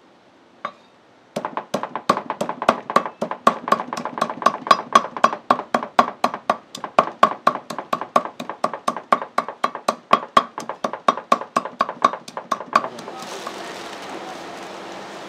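Rapid, even chopping, like a cleaver on a wooden cutting board, about four strokes a second, stopping shortly before the end. A steady hiss follows.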